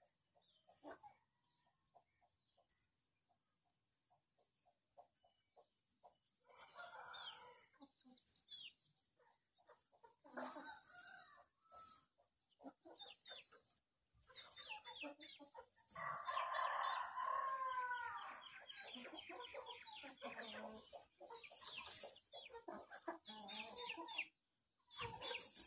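Desi chickens clucking in bursts from about six seconds in, with a rooster crowing once, a long call about two-thirds of the way through that is the loudest sound.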